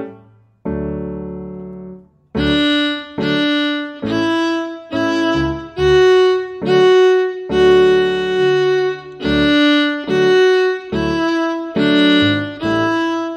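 A piano chord dies away, then about two seconds in a fiddle starts a simple two-step melody at slow practice speed, one separate bow stroke per note, with a low accompaniment underneath.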